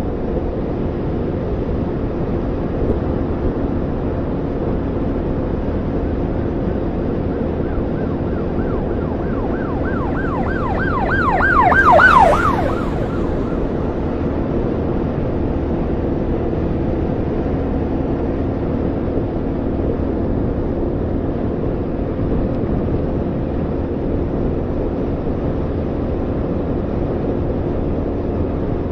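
Honda Monkey 125's single-cylinder four-stroke engine running steadily while cruising. About nine seconds in, an emergency vehicle's rapid yelping siren comes up, is loudest around twelve seconds, then drops in pitch and fades as it goes by.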